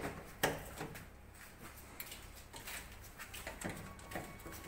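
Scattered clicks and knocks of hands handling filter parts and the filter housing of a screw air compressor, the sharpest about half a second in.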